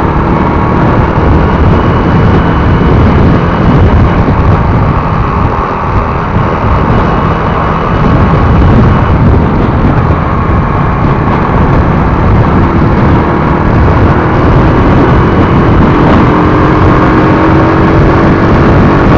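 Wind rushing over the microphone of a camera on a moving motorcycle, with the motorcycle's engine running underneath; an engine tone rises slowly in pitch in the second half as it gathers speed.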